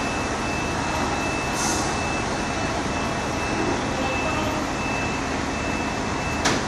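Heavy diesel machinery running steadily, with a high-pitched warning tone sounding almost continuously, broken by short gaps. A single sharp click comes near the end.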